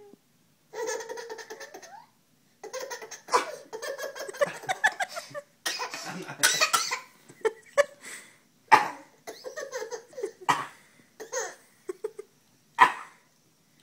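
A baby laughing hard in repeated bursts of belly laughs and giggles. The laughter is nearly continuous at first, then breaks into separate short, sharp outbursts in the second half.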